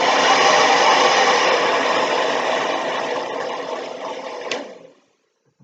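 Hairdryer running steadily, then switched off with a click about four and a half seconds in and winding down.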